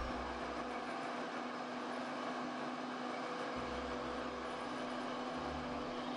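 Countertop blender motor running steadily, puréeing red berries with water.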